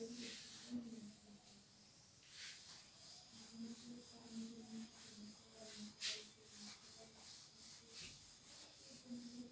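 A cloth wiping a whiteboard clean: faint, uneven rubbing strokes against the board.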